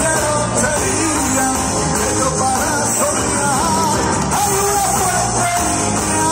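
Live rock band playing through a PA system, with guitars and drums and a melody line that slides and wavers above the band.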